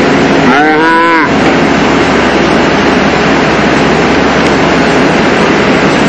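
Gas chainsaw running at full throttle, cutting through the base of a large tree trunk. About half a second in, a short tone rises and falls over the saw.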